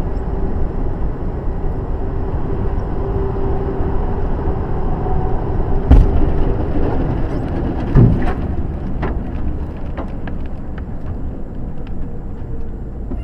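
Steady engine and road noise inside a truck's cab, broken about six seconds in by one sharp loud bang as a tyre bursts on a passing lorry, then a second thump about two seconds later and a scattering of light ticks.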